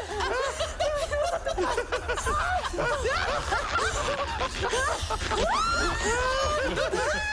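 Several people laughing and giggling over one another, with music playing underneath.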